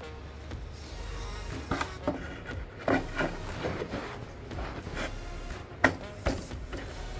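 A wooden strip being pressed and tapped down into a plywood fence channel, with a series of sharp wood-on-wood knocks and some scraping as it seats in a tight friction fit.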